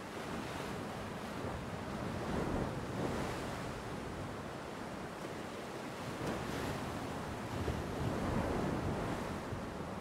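Ocean surf breaking and washing in, swelling twice, about two and a half and eight seconds in.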